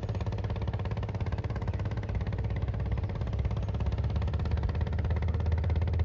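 An engine running steadily with a low, rapid throb, getting a little louder near the end.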